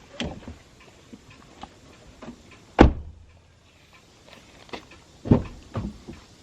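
A few scattered knocks and thumps, the loudest a sharp thud nearly three seconds in and another a little after five seconds.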